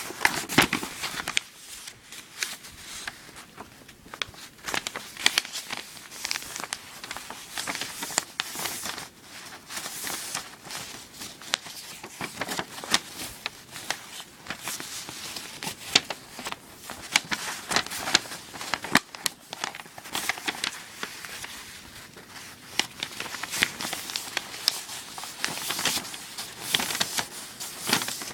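Origami paper being folded and creased by hand: irregular crinkling and rustling with frequent sharp crackles.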